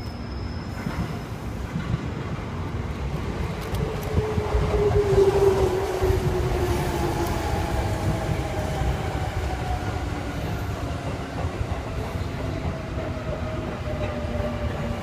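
583-series electric train running through the station, wheels rumbling and clattering on the rails, with a whine that slides steadily down in pitch as the train slows. The rumble builds over the first few seconds and is loudest about five seconds in.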